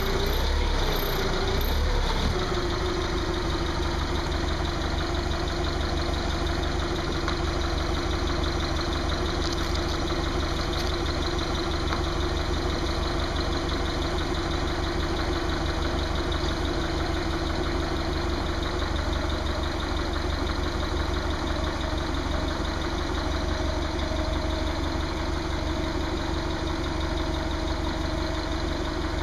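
Forklift engine running: it revs up and down a few times in the first couple of seconds as the pedal is pumped, then settles into a steady idle.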